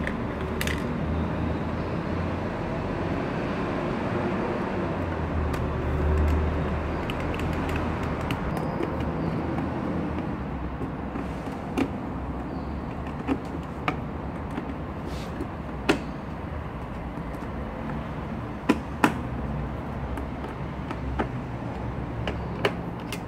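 Steady low background rumble, with a handful of sharp clicks in the second half as a screwdriver and small screws knock against the aluminium mounting plate and battery housings.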